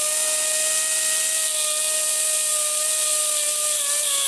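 Small rotary cutoff-wheel tool running at full speed, a steady high whine over a hiss, cutting off a protruding hardened-steel helicoil thread-insert coil. Its pitch sags slightly near the end as the wheel bears on the work.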